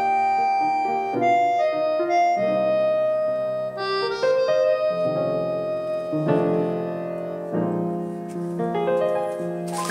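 Piano music: a melody of held notes and chords.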